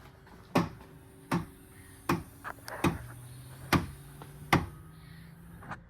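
A 2015 Subaru power liftgate opens: its motor hums steadily while a sharp pop repeats about six times, roughly one every three-quarters of a second, with the hum stopping near the end. The popping comes from the internal spring by the lift motor snapping as it turns on its post, which is cured with white lithium grease.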